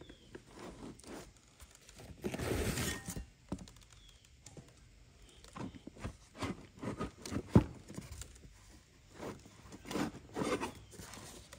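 Hands rummaging in a cardboard box: cardboard rustling and scraping, and the hand-forged steel hoes inside knocking against each other and the box, with one sharp knock about halfway through.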